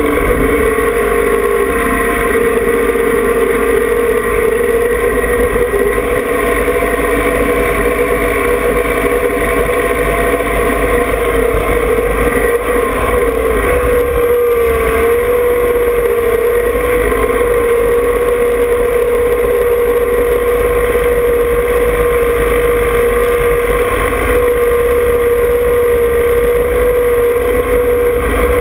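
John Deere 2305 compact tractor's three-cylinder diesel engine running steadily as the tractor drives, heard from on board, with a steady whine that wavers briefly about halfway through.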